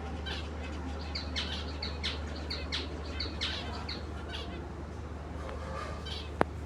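Lovebirds chirping in a quick series of short, high chirps, about three a second, for roughly four seconds, then fainter calls. A single sharp click near the end, over a steady low hum.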